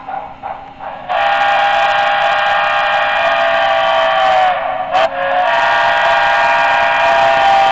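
Recorded steam-whistle sound from the sound decoder of an HO-scale Broadway Limited Paragon3 2-10-4 model steam locomotive, blowing two long chime blasts. The first starts about a second in and sags in pitch as it ends; after a short break the second is still sounding at the end.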